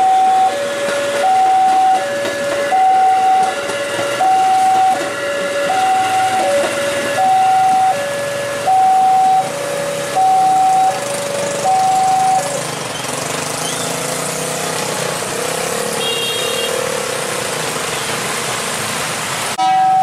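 Railway level-crossing warning alarm sounding an alternating high-low two-tone signal, about one pair of tones every second and a half, which stops about twelve seconds in. Under it is the steady hiss of heavy rain and an electric KRL commuter train passing.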